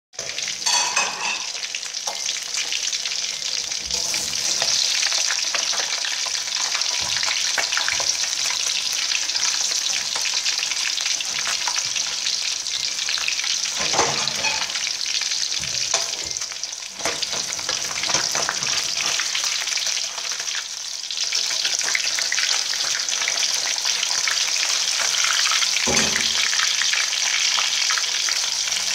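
Two scored whole fish sizzling in hot oil in a metal wok: a steady frying hiss. A metal spatula clinks and scrapes against the pan a few times, around 14 s and 26 s in.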